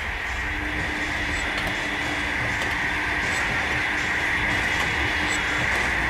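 Steady rumbling, rushing drone that slowly swells, with a faint held low tone and faint high ticks every couple of seconds. It has the sound of a passing train.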